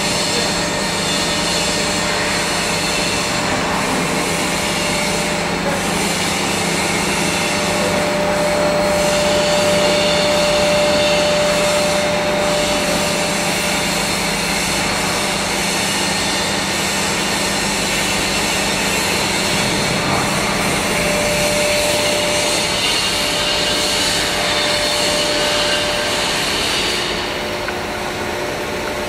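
PVC blown film extrusion line running: a steady machine hum and blower rush, with a thin whine that comes in twice.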